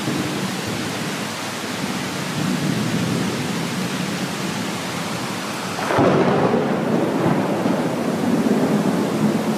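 Thunderstorm: steady heavy rain with thunder rumbling. About six seconds in, a louder peal of thunder breaks in suddenly and keeps rolling.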